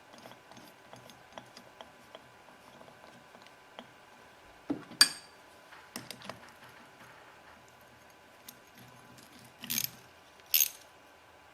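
Small metal parts and hand tools clicking and clinking while generator carburetor parts are handled, with a sharp metallic clink about five seconds in and two more near the end.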